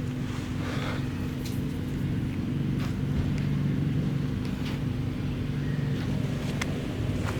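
A motor running steadily with a low, even hum, and a few light clicks over it.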